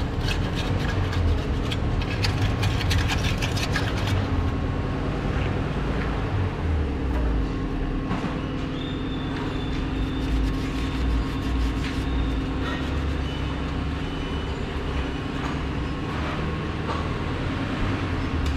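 Steady low mechanical rumble with a faint hum, with a run of fast metallic clicks through the first four seconds or so.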